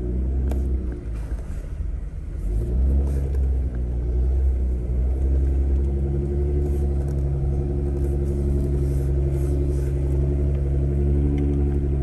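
Jeep Gladiator engine running at low revs while crawling along a dirt trail. It eases off about a second in and picks up again under throttle at about three seconds, then holds steady.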